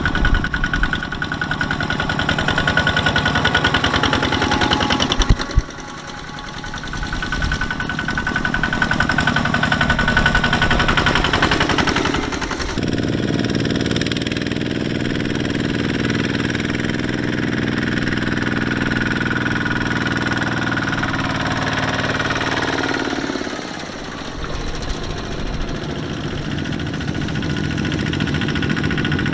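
Kubota walking tractors' single-cylinder diesel engines running steadily as they pull loaded trailers. The engine sound drops away suddenly about five seconds in, changes character near thirteen seconds and dips briefly near twenty-four seconds as different machines come close.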